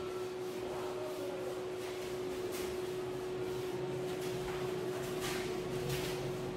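Whiteboard eraser wiping marker writing off a whiteboard in a few short scrubbing strokes, over a steady electrical hum.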